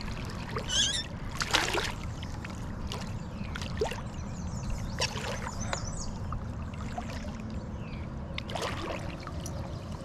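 A hooked smallmouth bass splashing at the surface beside a kayak, a few sharp splashes over the steady rush of river current.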